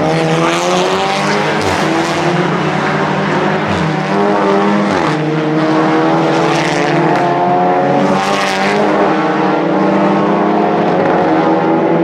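Several Audi TT Cup race cars' turbocharged four-cylinder engines running hard together, pitch rising as they accelerate through the gears just after the start and again about five seconds in.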